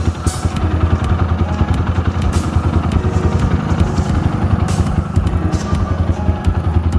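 Rusi Classic 250 motorcycle engine idling with a rapid, even pulse.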